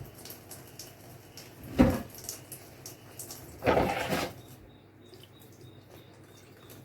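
Washing dishes at a kitchen sink: one knock of a dish about two seconds in, then a brief rush of water near the middle.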